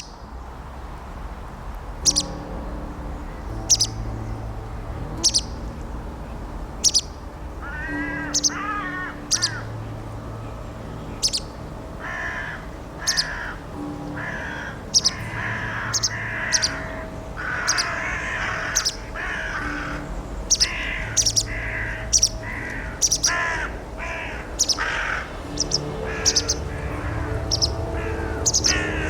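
Crows cawing repeatedly over music with a low drone and sharp ticking strikes. The strikes come about every second and a half at first, then faster, and the cawing grows denser about halfway through.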